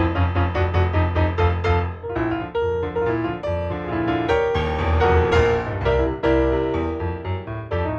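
Lively solo piano music: quick repeated chords over a steady bass line, giving way about two seconds in to a fuller, busier passage.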